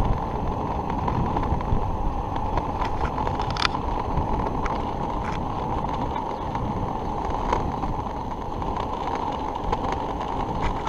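Razor RipSurf waveboard's two caster wheels rolling fast on asphalt: a steady rolling rumble with a few small clicks, mixed with wind on the microphone.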